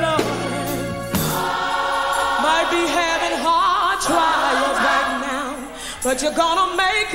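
Live gospel music: a woman soloist sings with a wide, wavering vibrato, backed by a choir and a band with drums.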